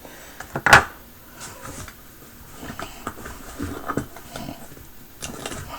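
Small pieces of carry gear being handled: one sharp click or knock about three-quarters of a second in, then faint rustling and light taps.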